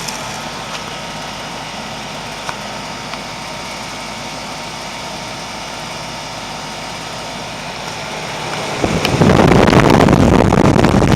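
2004 Carrier 3-ton heat pump outdoor unit running in heat mode, its reciprocating compressor and fan giving a steady hum with several steady tones. Near the end a much louder rushing noise swells up and covers it.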